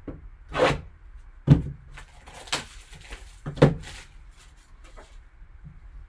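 A trading-card box and its packaging being handled and opened: four short knocks and rustles over about four seconds.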